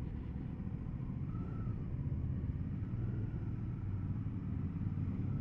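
Motorcycle running along at road speed: a steady low rumble of engine and road, with a faint whine that rises and falls gently as the revs change.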